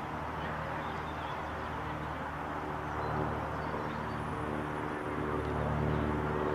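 A steady low mechanical hum with even overtones over a wash of outdoor noise, growing slightly louder near the end.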